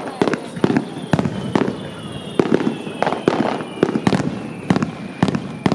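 Aerial fireworks bursting in quick, irregular succession: a string of sharp bangs, about two to three a second.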